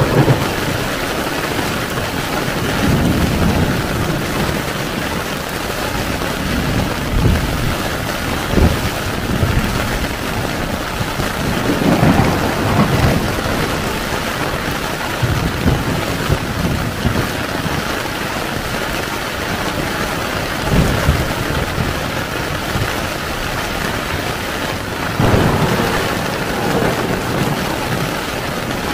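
Heavy rain falling steadily on a tent, with several low rolls of thunder swelling and fading, the strongest about twelve and twenty-five seconds in.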